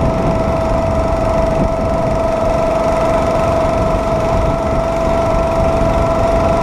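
Small engine of a homemade motorized rail cart running at a steady speed as the cart rolls along the track, with a steady high whine over a rough low rumble.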